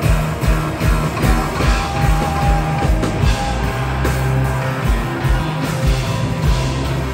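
Live band playing rock with electric guitars and a drum kit, the kick drum keeping a steady beat of about two and a half hits a second; a held low bass note comes in about four seconds in.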